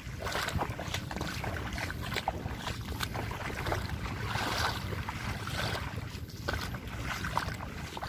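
Footsteps wading through shallow water, sloshing and splashing unevenly, with wind on the microphone.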